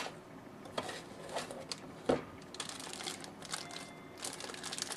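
Plastic packaging crinkling and rustling as parts are handled out of a cardboard box, with scattered light clicks and a sharper knock about two seconds in.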